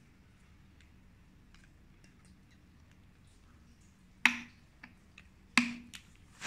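Two sharp knocks on a tabletop about a second and a half apart, each with a brief low ring, among faint small clicks from things being handled.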